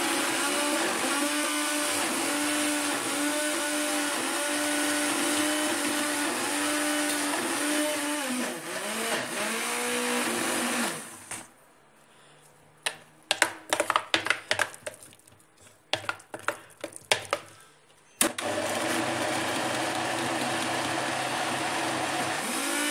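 Countertop blender with a plastic jar blending a thick batter of rice, eggs and milk, its motor pitch dipping and recovering as the batter loads it. It stops about halfway, giving way to clicks and knocks of a spoon against the plastic jar, then runs again for the last few seconds.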